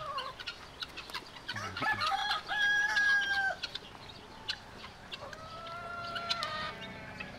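A rooster crowing twice, each crow a few short notes rising into one long held note, the second beginning about five seconds in.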